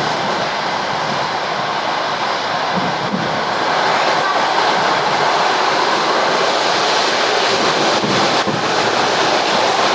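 ED4M electric train running along the track: steady wheel and rail noise that grows a little louder about four seconds in.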